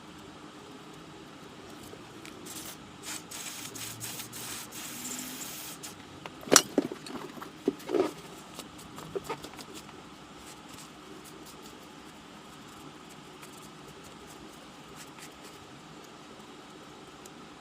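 Workshop handling sounds during a bicycle hub bearing job: rustling, then a few sharp metallic clicks and knocks about six to nine seconds in, as tools and hub parts are handled.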